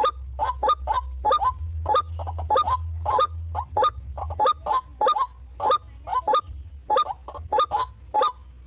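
White-breasted waterhen (ruak-ruak) calling: a rapid, loud run of short honking notes, about three a second, often in quick pairs or triples.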